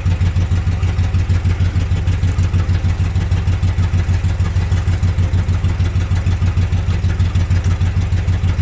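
A vehicle engine idling steadily, with an even, rapid pulsing beat.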